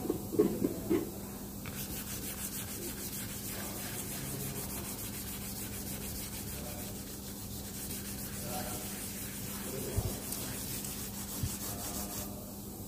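Sandpaper rubbed back and forth over a painted body panel, sanding away a patch of wrinkled, lifted paint: a steady hiss of abrasion that starts about two seconds in and stops shortly before the end. A few light knocks come at the start and one thump comes near the end.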